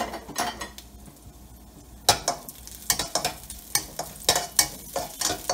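Ginger slices and garlic cloves sizzling lightly in hot oil in a wok. From about two seconds in, a spatula scrapes and taps against the pan again and again as they are stirred.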